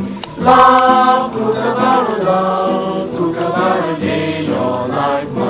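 Music with a group of voices singing together, coming in loudly about half a second in.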